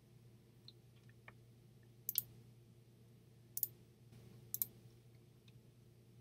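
A few sharp computer mouse clicks, three of them clear and spaced a second or so apart, over a faint steady low hum.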